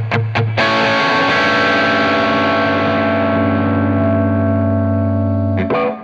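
Electric guitar played through a TONEX tone model of a Marshall SV20H amp with crunch overdrive. A few short chord stabs are followed by one chord left ringing for about five seconds, then cut off, with quick stabs again near the end.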